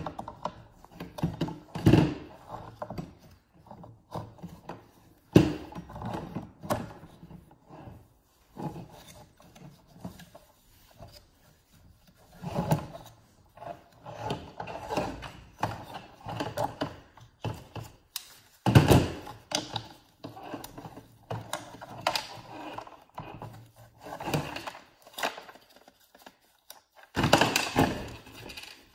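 Groove-joint pliers working on a cordless leaf blower's fan hub, with the red plastic blower housing shifted and knocked about on the table: irregular clacks and rubbing with a few louder thumps.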